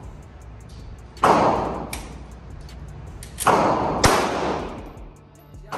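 Three shots from a 9mm Walther PPS pistol: one about a second in, then two more about half a second apart a couple of seconds later. Each crack rings out in a long echo off the walls of an indoor range.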